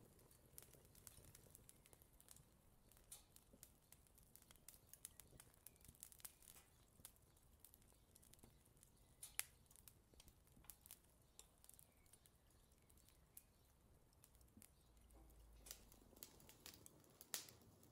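Faint, irregular crackling and ticking of a slice of bread toasting, its surface browning toward burnt.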